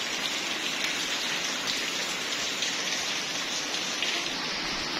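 Steady rain falling on puddles and wet ground, an even hiss with no let-up.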